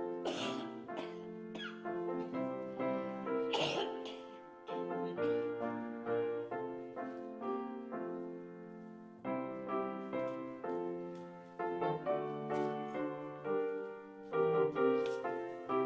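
Piano playing a hymn tune in full chords, each chord struck and left to fade, with two brief coughs early on.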